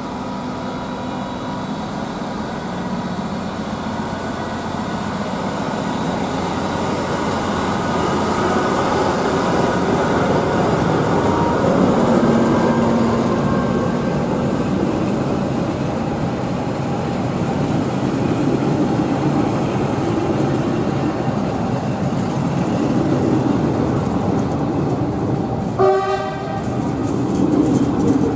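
A train running past on the rails with steady wheel and rail noise that swells and eases. Near the end it gives a short horn toot.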